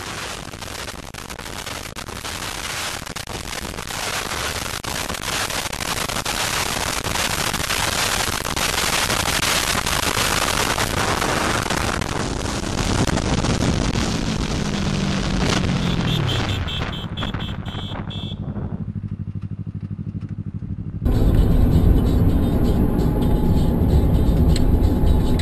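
Steady road and engine noise of moving vehicles, with an engine tone falling in pitch about two-thirds of the way through. It changes abruptly twice, ending in a heavy low rumble.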